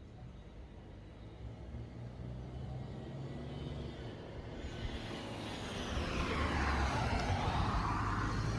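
A car approaching along the road, its engine and tyre noise growing steadily louder through the last few seconds.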